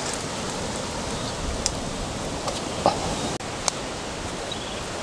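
A steady outdoor hiss with a few light clicks and knocks, about three in all, as a man climbs a tree trunk barefoot.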